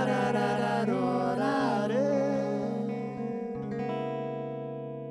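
Live band music: male voices sing a wordless "la-ra-ra" refrain over guitar. After about two and a half seconds the singing stops and a guitar chord is left ringing, slowly fading.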